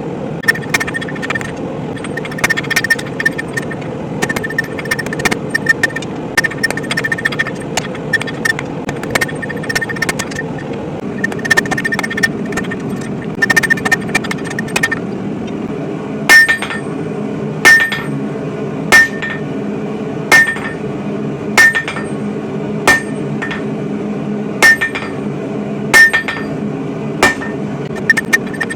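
Hammer blows on hot spring steel at the anvil, each strike followed by a short anvil ring. The first half is quicker, lighter hammering; from about halfway come heavy single blows about every second and a quarter, the loudest sounds here. A steady low hum runs beneath.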